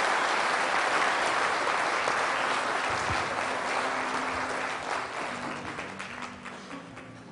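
Audience applauding, the clapping thinning out and dying away over the last few seconds.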